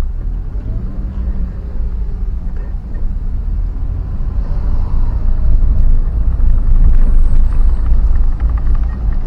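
Low, uneven rumble of a vehicle travelling on the road, growing louder about four seconds in.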